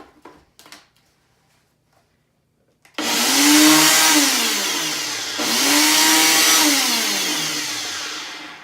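Electric blender switched on about three seconds in and running loudly, chopping the spices. Its motor pitch sags and recovers twice as the load changes, and it stops just before the end. A few light knocks come before it starts.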